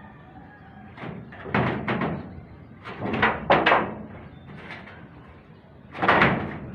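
Corrugated metal roofing sheets being handled, giving a string of bangs and rattles: a couple about one and a half to two seconds in, a cluster a little past three seconds, and the loudest bang about six seconds in.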